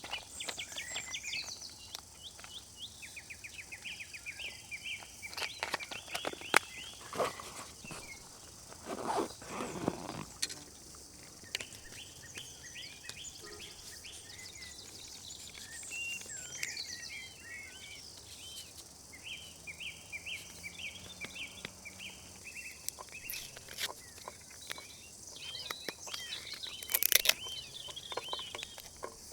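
Songbirds chirping and trilling again and again, some calls sweeping downward, with scattered clicks, knocks and rustles from handling things at camp.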